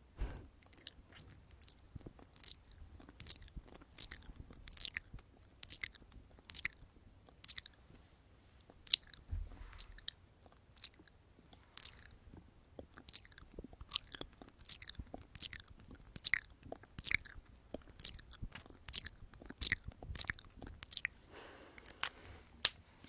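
Close-miked ASMR mouth sounds: wet lip smacks and tongue clicks, irregular, about one or two a second. Near the end a brief soft rustle and a single louder click.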